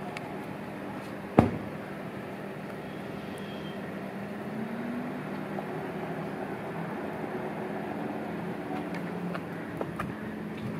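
Steady outdoor street ambience with a low hum of traffic, broken by a single sharp knock about one and a half seconds in.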